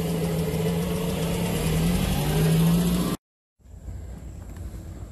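A motor vehicle engine running steadily with a low hum, rising slightly in pitch as it revs about two to three seconds in, then cut off abruptly. A quiet, even outdoor background follows.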